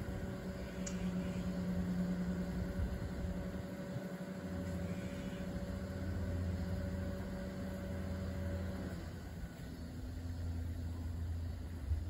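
A steady low mechanical hum with a few held tones that shift in pitch about nine seconds in.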